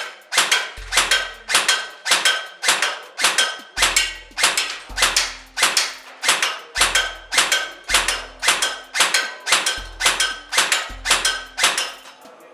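Krytac Kriss Vector airsoft electric gun firing single shots at a steady pace of about two a second, each shot a sharp crack with a short ringing tail. A low bass pulse of background music runs under the shots.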